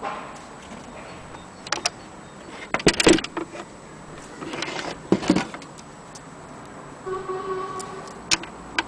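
Mignon index typewriter from 1927, its mechanism clacking in a few sharp, irregular strokes, some in quick double or triple clusters. A short ringing tone lasts about a second near the end.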